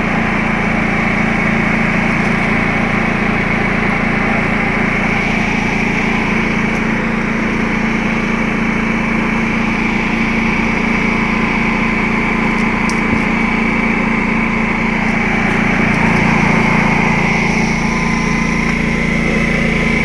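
Predator 11,500-watt inverter generator engine running steadily, with a constant low hum and a steady high whine; its engine note shifts and gets slightly louder about sixteen seconds in.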